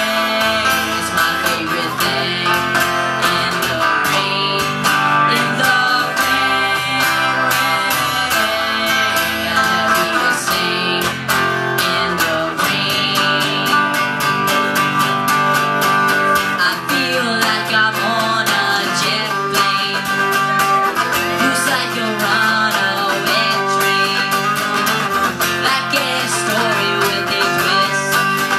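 Two acoustic guitars played live together, strummed chords ringing in a steady rhythm.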